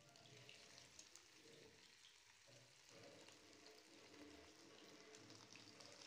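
Spice-coated fish pieces frying in hot oil in a pan: a faint sizzle with scattered small crackles.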